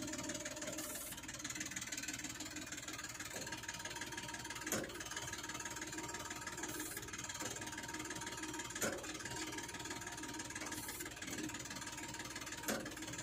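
New Holland 3230 tractor's diesel engine running steadily while a hydraulic reversible plough is being turned over. Three sharp knocks sound about four seconds apart.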